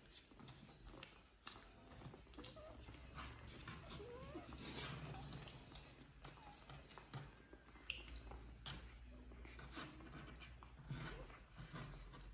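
Newborn Jack Russell terrier puppies nursing: faint, short squeaks and whimpers scattered through, with many small clicks of suckling and squirming.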